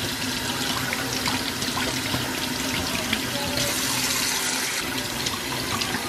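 Kitchen faucet running steadily over berries held in a plastic clamshell container, the water spattering off the plastic into a stainless steel sink.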